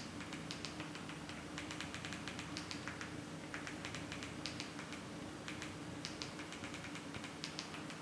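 Remote-control buttons clicking, in irregular runs of quick presses, as a highlight is stepped across an on-screen keyboard to type a command. A faint steady hum lies underneath.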